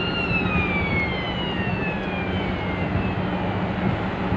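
A siren sounds one wail: its pitch peaks at the start, then falls slowly over about three and a half seconds, over a steady low hum.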